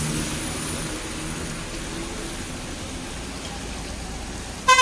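Steady road and wind noise from a moving bus, an even hiss over a faint low engine hum. A vehicle horn starts honking right at the end.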